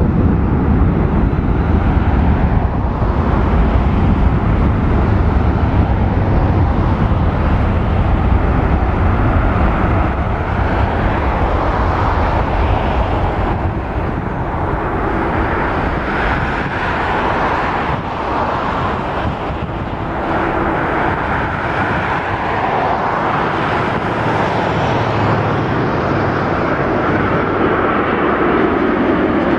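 Boeing 787-8 airliner's GEnx-1B turbofan engines on landing approach, a loud, continuous jet sound as it passes. A deep rumble dominates the first half, then about halfway through it gives way to a higher, hissing whine with a few steady tones.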